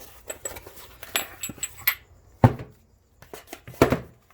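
Metal tools and transmission parts clinking and knocking on a workbench as they are moved about, with a cluster of ringing clinks in the first two seconds and two louder knocks later.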